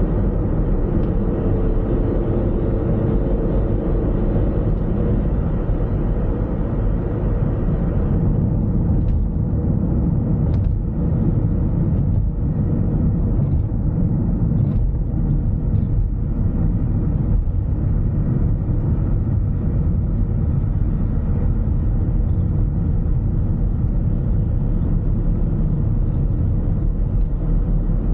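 A car driving along at a steady pace: an even, low rumble of the moving car, with a few faint ticks in the middle.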